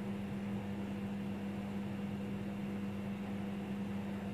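Steady low hum with an even hiss: background room tone.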